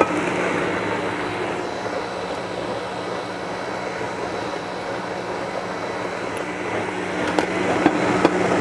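Vitamix blender motor running steadily, blending a raw tomato and red pepper sauce. A couple of light clicks come near the end.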